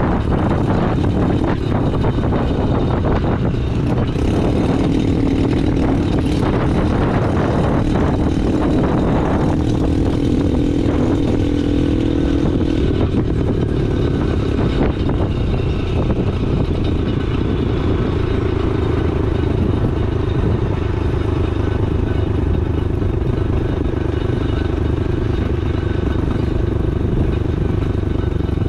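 2022 Honda Navi's small single-cylinder engine running steadily while the bike is ridden along a road, heard from the rider's seat with wind and road noise.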